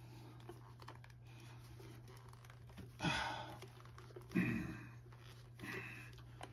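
Short, strained breaths of a man straining hard to twist apart a stuck milk-frother housing: two louder ones about three seconds and four and a half seconds in, and a fainter one near the end, over a faint steady low hum.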